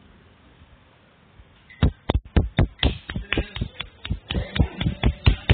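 A rapid, irregular series of sharp taps and knocks, about five a second, starting about two seconds in.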